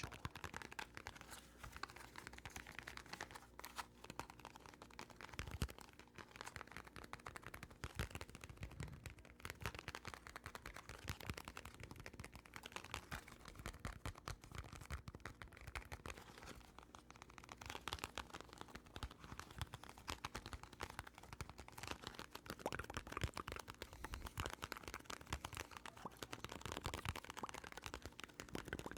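Close-miked ASMR trigger sounds: a dense, uneven run of soft quick clicks and taps.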